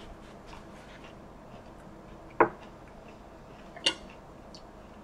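Knife and fork clicking against a ceramic plate while cutting boneless chicken wings: a sharp knock about two and a half seconds in and a brighter clink about four seconds in.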